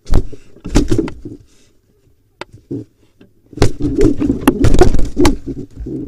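Barn owl and pigeon scuffling inside a nest box: sudden thumps and wing flapping against the box walls for the first second or so, a couple of light knocks, then a longer, dense flurry of flapping and scraping from about three and a half seconds in, as the owl attacks the incubating pigeon.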